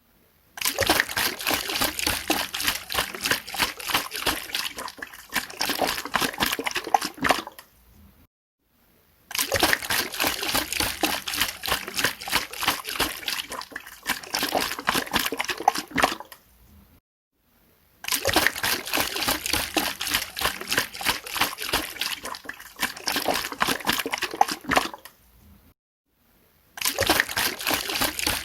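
Water shaken hard in a container: a fast, dense sloshing and splashing, in long bouts of about eight seconds broken by short pauses.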